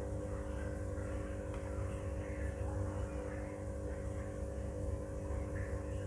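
Steady hum of a laptop's cooling fan with several constant tones over a low rumble, the computer working hard while Visual Studio creates a project.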